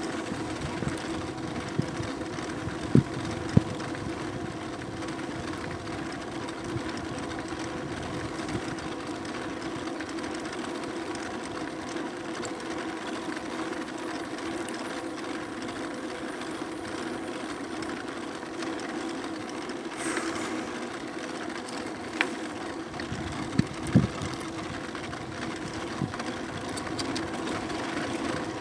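Electric bike riding along: a steady hum from its electric motor over tyre and wind noise. There are a few sharp knocks, two about three seconds in and a cluster just before the end.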